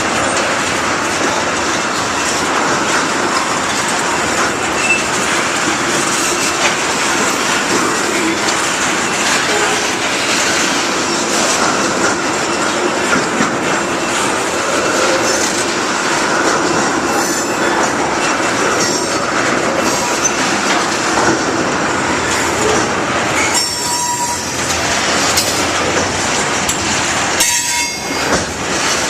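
Iowa Interstate freight train cars rolling past at close range: a loud, steady clatter of wheels over the rail joints, with brief high wheel squeals near the end.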